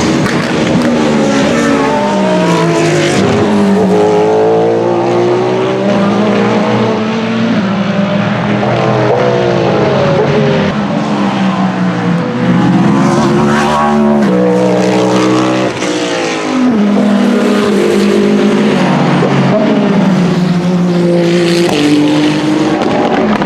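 Hypercar-class endurance race cars accelerating past one after another, their engine pitch rising and then dropping in steps with each gearshift.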